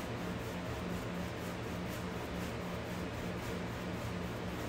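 Paintbrush scrubbing acrylic paint onto a stretched canvas: faint, rapid back-and-forth strokes of bristles rubbing on the canvas.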